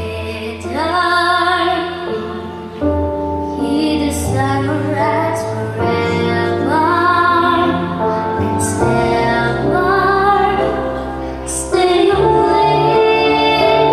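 A female voice singing a slow song over instrumental accompaniment with sustained bass notes; the voice enters about half a second in and holds long, wavering notes.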